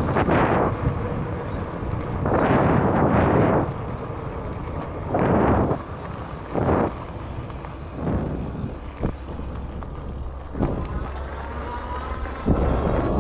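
Wind buffeting the microphone in irregular gusts over a steady low rumble from a fat-tire electric bike being ridden on throttle.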